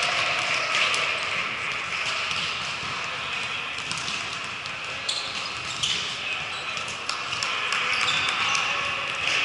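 Indoor volleyball rally in a reverberant gym: a few sharp knocks of the ball being struck, mostly in the second half, over a steady background of players' and spectators' voices.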